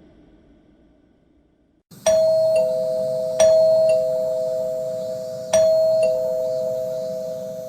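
Two-tone doorbell chime rung three times, each ding-dong a higher note followed by a lower one, ringing on and slowly fading after the last pair. A faint tail of an earlier effect dies away before the first chime.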